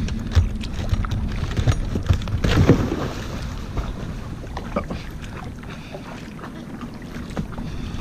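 Kayak being paddled, with wind buffeting the microphone in a steady low rumble and scattered splashes and knocks of the paddle at uneven intervals.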